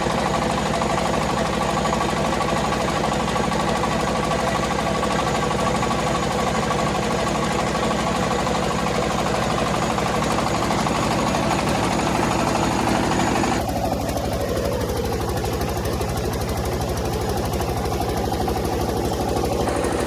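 Rice milling machine running with a steady, rapid mechanical rattle. About two-thirds of the way through, the sound abruptly turns duller, losing its high end.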